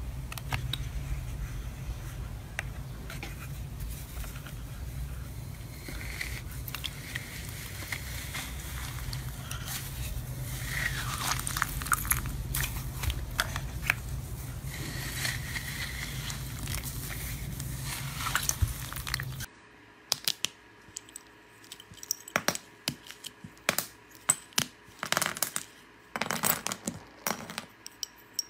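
Glitter slime being pressed and stirred by hand in a bowl, faint handling noises over a steady low hum. About two-thirds of the way through this cuts to sharp, irregular clicks and cracks of sticks of coloured chalk being handled and broken by hand.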